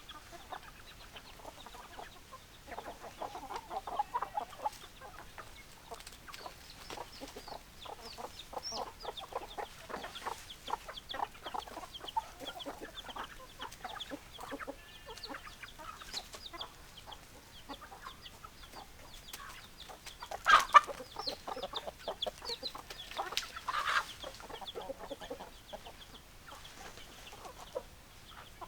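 Chickens clucking: many short, overlapping clucks from a flock of hens, with two louder calls about two-thirds of the way through.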